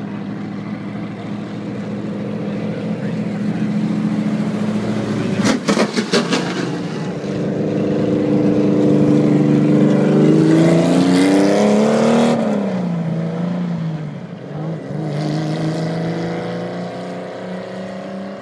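Race car engine, an open-wheel Indy-style car, running as it circles the roundabout: it grows louder and rises in pitch as it approaches, then drops in pitch as it passes close about twelve seconds in, and rises again near the end. A few sharp knocks about five to six seconds in.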